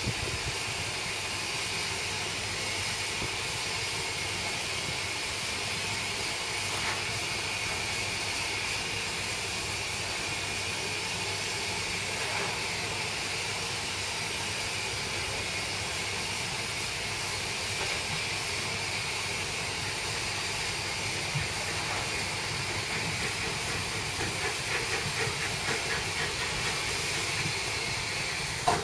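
Jubilee-class steam locomotive 45699 'Galatea' standing in steam, giving off a steady, even hiss. Near the end, a faint regular beat comes in as a second steam locomotive approaches.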